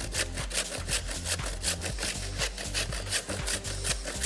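A block of panela (hard unrefined cane sugar) being grated on a stainless-steel box grater over a metal bowl: quick, even rasping strokes, about four a second.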